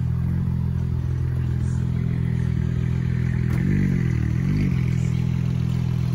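A car engine idling steadily, blipped twice in quick succession about halfway through, its pitch rising and falling back each time.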